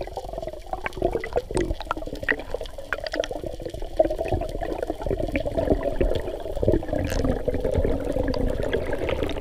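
Water sound recorded underwater through a camera's waterproof housing: a steady muffled hum with scattered clicks and knocks.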